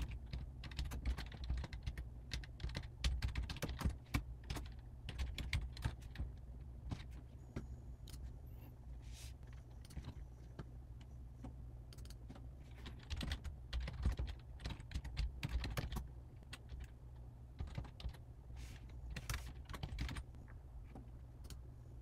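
Typing on a computer keyboard: irregular runs of key clicks, with a sparser stretch about halfway through, over a low steady hum.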